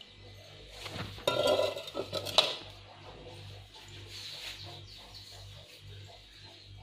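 Kitchenware clattering as a stainless steel bowl and a plastic strainer are handled, with a sharp clink about two and a half seconds in.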